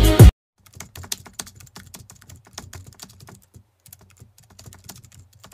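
Intro music cuts off abruptly just after the start, followed by faint, irregular clicking, several small clicks a second, for about five seconds.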